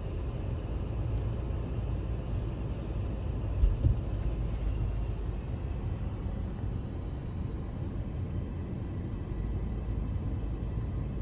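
Steady low rumble, with a brief thump a little over three and a half seconds in.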